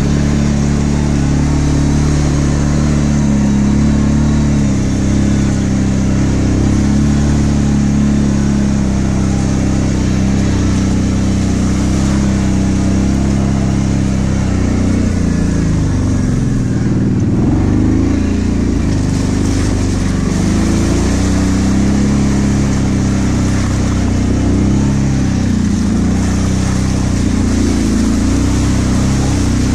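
Kawasaki KVF 750 Brute Force ATV's V-twin engine running steadily as the quad rides along a dirt trail. Around halfway through the engine note drops and wavers as the throttle eases, then picks back up to a steady pull.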